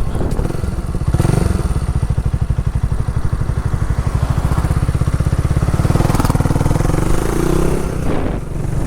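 Motorcycle engine running while riding, with heavy wind noise on the microphone and a fast, even pulsing in the low end. Near the end the engine pitch shifts.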